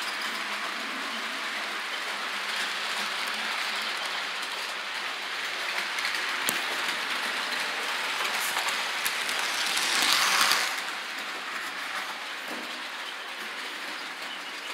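Model train running on the layout's track: a steady rolling clatter and hiss of wheels on rails that swells to its loudest about ten seconds in, then drops back.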